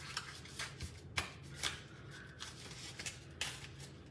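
Hands folding and pressing a cardstock treat sleeve wrapped around a candy bar: faint paper rustling with a handful of sharp crinkles and taps.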